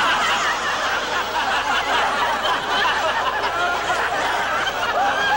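Many voices overlapping at once, a steady mix of chatter and laughter.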